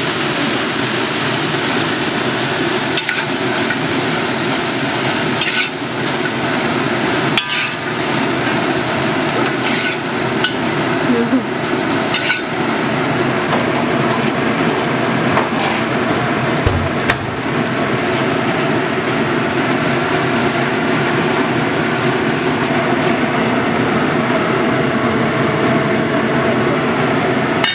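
Pork pieces sizzling in hot oil and sauce, a steady hiss broken by occasional sharp clicks of a utensil against the pan.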